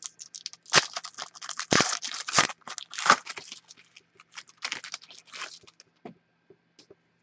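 Wrapper of a trading-card pack crinkling and tearing as it is ripped open and the cards slid out, a quick run of crackles that stops about five and a half seconds in, followed by a few light clicks.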